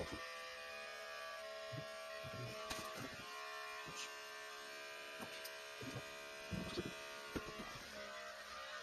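Electric hair clippers running with a steady buzz as they cut through thick natural hair, with brief knocks and rubs from handling now and then.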